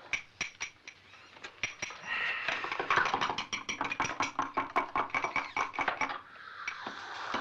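A series of sharp clicks or taps, scattered at first, then coming faster at about five a second over a hiss, stopping suddenly about six seconds in.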